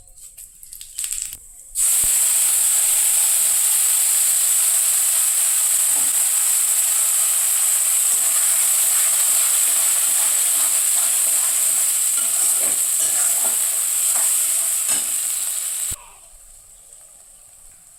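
Food sizzling loudly in hot oil in a pan, with small crackles through it. It starts suddenly about two seconds in, after a few light clicks, and cuts off abruptly near the end.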